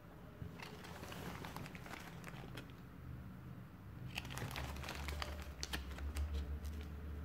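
Clear plastic packaging bag crinkling as it is handled and turned over, in irregular crackles: a first spell, then a denser, louder one from about four seconds in, with a low rumble underneath.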